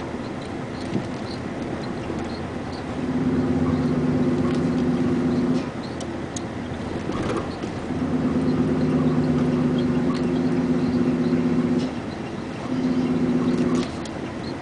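A vehicle engine heard from inside the moving vehicle, droning at a steady pitch under load in three louder stretches, with quieter running between them.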